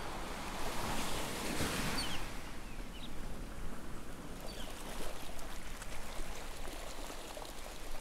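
Ocean surf washing on a beach: a steady rush of water with a swelling wave about a second and a half in. Faint short high bird calls sound above it a few times.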